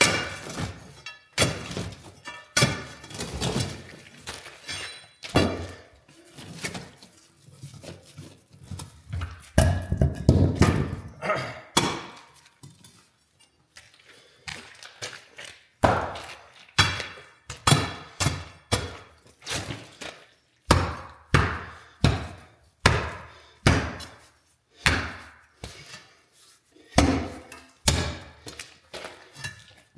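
Repeated heavy blows striking concrete, coming about one a second in the second half, with a more jumbled stretch of knocking and grinding earlier: the saw-cut concrete slab being broken out.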